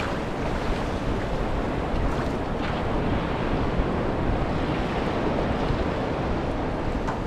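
Shallow ocean surf washing in over sand, a steady rushing of water close to the microphone.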